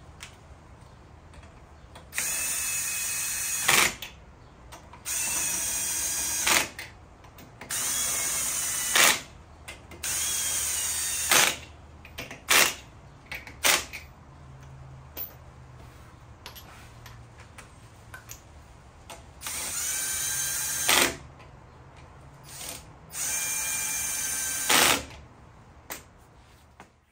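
Cordless impact wrench running the wheel's lug nuts down, six separate runs of about a second and a half each. Each run has a rising motor whine and ends in a short sharp burst as the nut seats, snugging them before final torquing.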